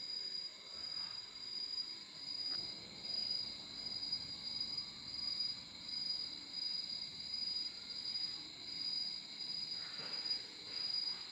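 Insects trilling in a steady high-pitched chorus that swells and fades about once a second, with a faint click about two and a half seconds in and a soft rustle near the end.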